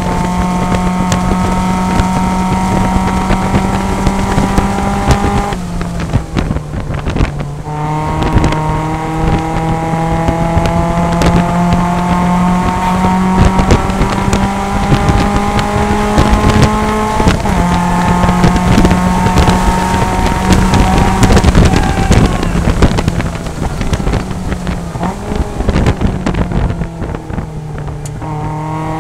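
Mazda MX-5 Cup race car's four-cylinder engine, heard from inside the cockpit, running hard at high revs on track. Its pitch climbs slowly, drops briefly about six seconds in and steps again around seventeen seconds.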